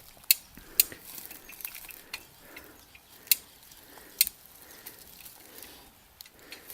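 A few separate sharp clicks, four of them spread irregularly over the first four seconds or so, over faint rustling.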